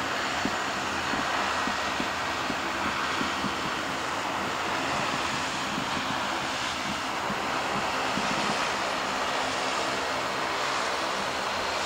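De Havilland Canada Dash 8 Q400 turboprop taxiing, its two Pratt & Whitney Canada PW150A engines and six-blade propellers making a steady hum with a low buzzing tone under a broad rushing noise.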